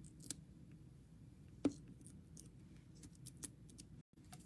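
Hands handling cardstock and a die-cut paper tree on a craft mat: faint scattered paper clicks and light taps, with one sharper tap about a second and a half in.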